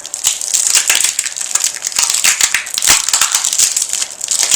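Plastic packaging crinkling and crackling as it is handled and unwrapped, a dense run of sharp crackles.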